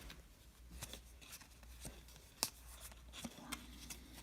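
Baseball trading cards handled and flipped through by hand: faint slides and light clicks of card stock, with one sharper snap about two and a half seconds in.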